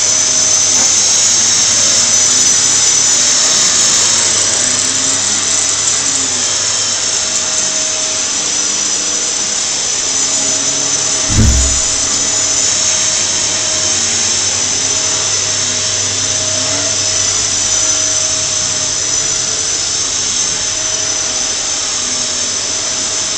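Vacuum cleaner running steadily with a high-pitched motor whine as it is pushed over the floor. A single low thump comes about halfway through.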